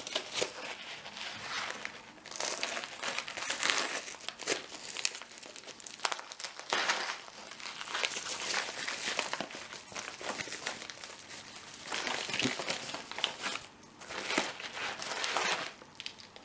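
Package being opened by hand, its wrapping crinkled and pulled apart: irregular stretches of crackly rustling with short pauses.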